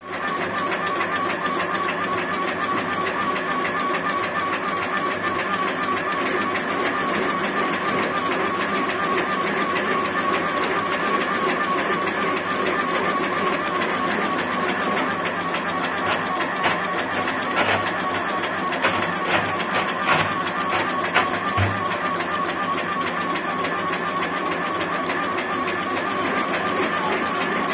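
Automatic agarbatti (incense stick) making machine running, a fast, even mechanical chatter over a steady whine, with a few louder clicks past the middle.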